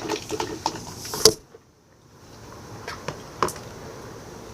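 Scattered small clicks and knocks of supplies being handled on a table. A sharp click about a second in is followed by a sudden drop-out of almost all sound for about a second.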